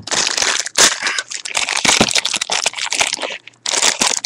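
Clear plastic packaging crinkling and crackling close to the microphone as it is handled and opened by hand, with a short break about three and a half seconds in.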